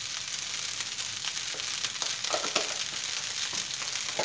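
Fried rice sizzling steadily in a hot metal wok, with a few faint light ticks.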